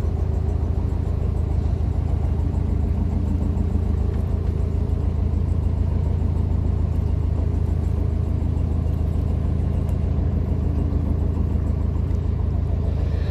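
Narrowboat engine running steadily with the boat under way: a deep, even rumble that holds constant.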